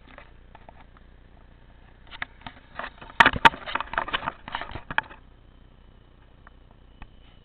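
Handling noise from a small camera being set down: a rapid cluster of knocks, clicks and scrapes from about two to five seconds in, loudest a little past three seconds, over a faint steady background.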